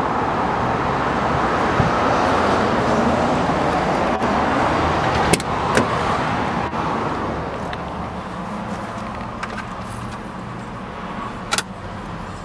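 Mitsubishi Pajero's four-cylinder turbo-diesel engine idling steadily, quieter from about two-thirds of the way in once heard inside the cabin. A few sharp clicks come in the middle and near the end.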